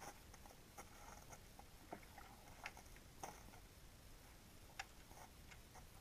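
Near silence in an underwater camera recording beneath lake ice, with faint sharp clicks and ticks scattered irregularly, about one a second.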